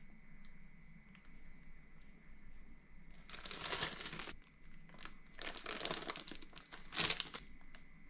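Plastic food packaging (bread and pastry bags) crinkling as it is handled, in three bursts, the last one short and loudest.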